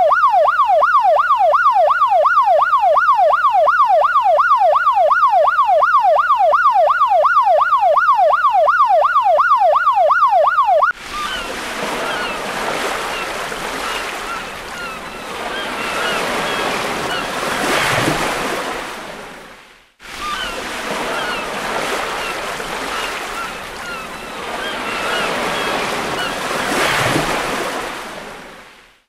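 A siren sound effect yelping rapidly up and down, about three cycles a second, stops abruptly about 11 seconds in. A recording of surf follows, with waves washing in and swelling, and it cuts off sharply twice.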